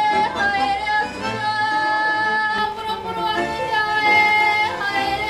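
Māori women's karanga, the high chanted welcome call: long-held sung notes with short downward slides where the phrases break, about a third of a second in and again near the end.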